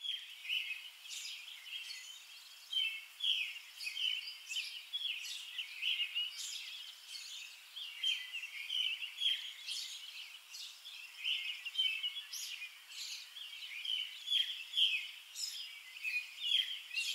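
Songbirds chirping and singing, a dense run of short, high chirps overlapping one another throughout.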